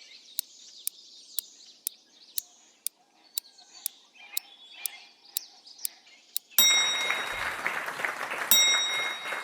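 Quiz-game sound effects: a clock-like tick about twice a second over faint birdsong, then about two-thirds of the way through a loud burst of applause-like cheering with a bright chime that rings twice, marking the end of the answer time.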